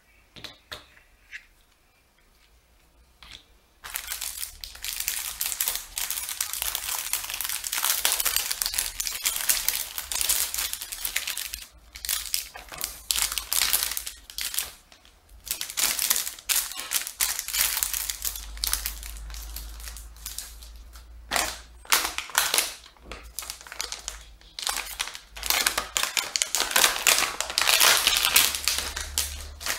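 Clear plastic packaging crinkling as it is handled, starting about four seconds in and going on in stretches with a few brief pauses.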